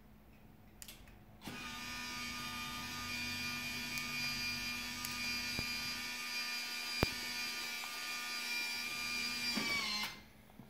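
Motorized drapery track running as the drapes draw closed: a steady electric motor whine that starts about a second and a half in, then falls in pitch and stops about ten seconds in. A single sharp click about seven seconds in.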